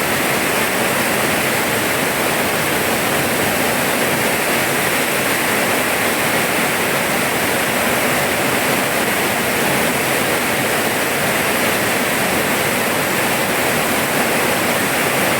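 Rain falling steadily: a dense, even hiss with no separate drops, thunder or other sounds standing out.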